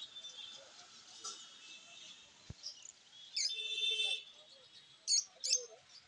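Small caged birds chirping and twittering, with a buzzy run of chatter about three and a half seconds in and two sharp chirps near the end.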